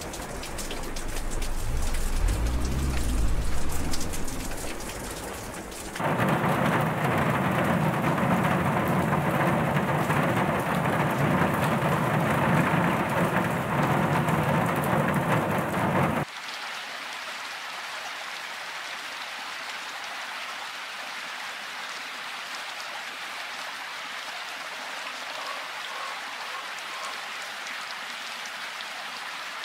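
Steady rainfall pitter patter, changing abruptly twice. Over the first few seconds a deep rumble swells and fades under the rain; from about six seconds in the rain is loud and full, and about sixteen seconds in it cuts to a lighter, thinner patter.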